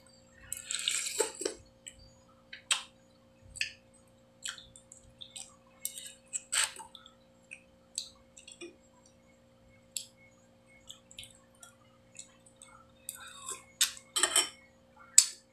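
A person eating noodle soup close to the microphone: a slurp of noodles about a second in, then scattered wet mouth smacks and chewing clicks, with a metal spoon now and then clinking against the bowl.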